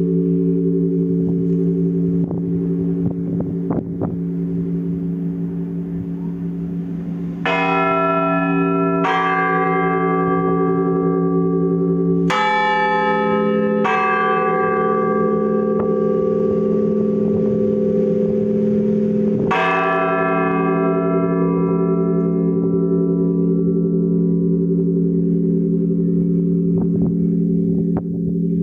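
Church bells tolled by hand, the clappers pulled on ropes, ringing the slow funeral toll for the death of a Pope. Five strokes come a few seconds apart, some in pairs, each ringing on in a long, humming decay.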